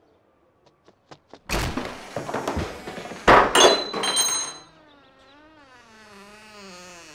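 A wooden front door is flung open: a few clicks of the latch, then two loud clattering bangs, the second ringing metallically. It is followed by a long wavering creak as the door swings back on its hinges.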